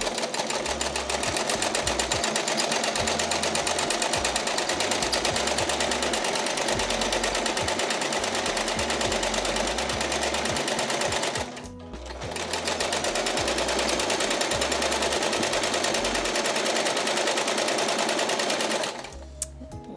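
Small home sewing machine running at speed, needle stitching in a fast even rhythm as fabric is guided freehand under a darning foot for free-motion quilting. It stops briefly about halfway, starts again, and stops about a second before the end.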